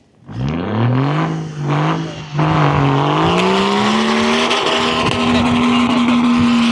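Off-road 4x4's engine revving: it starts suddenly, climbs in pitch, dips briefly about two seconds in, then rises again and is held at steady high revs.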